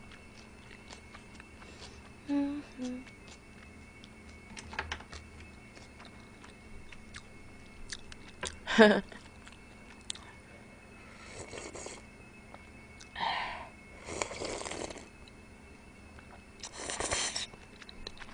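Close-miked eating sounds from seafood noodle soup: soft chewing and mouth noises, with one loud short sound falling in pitch about nine seconds in, then several short breathy rushes of air in the second half.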